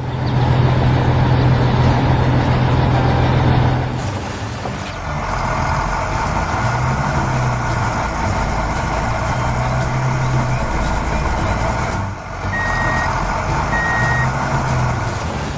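Heavy construction vehicle's diesel engine running, a steady low drone that eases and swells. Two short, high beeps come near the end.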